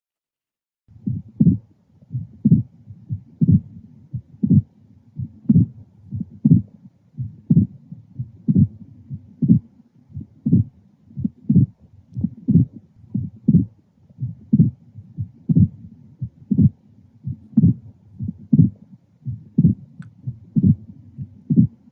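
Recorded heart sounds with a pericardial knock: low thuds below about 1 kHz, repeating about once a second, each beat made of S1, S2 and an extra diastolic knock. The knock comes from the sudden stop of ventricular filling and is the sign of constrictive pericarditis.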